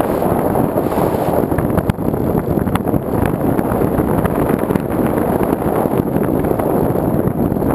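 Steady wind rush buffeting the microphone of a GoPro carried on a Sky Surfer RC foam plane in flight.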